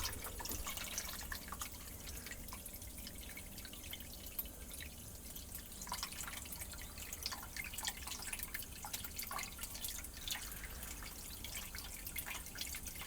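Water dripping and trickling into a toy washing machine's drum as it fills, in irregular drops over a faint low hum.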